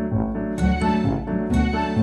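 Instrumental background music, pitched notes starting about twice a second over a low bass line.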